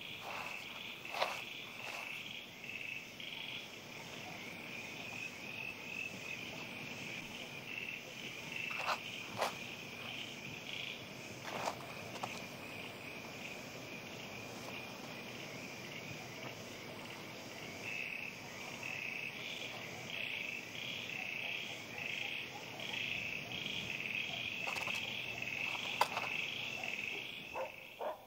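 Night chorus of calling animals: a steady, high pulsing trill that grows stronger in the second half, with a few short taps and scuffs scattered through.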